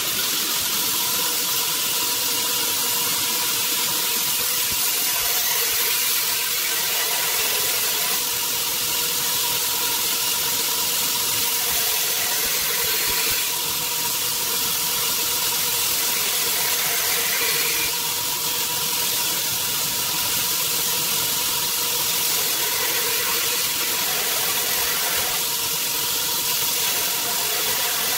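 Belt grinder running with a steady whine as its abrasive belt grinds the bevel of a steel knife blade held freehand against the platen, a continuous hissing rasp that shifts a little between passes.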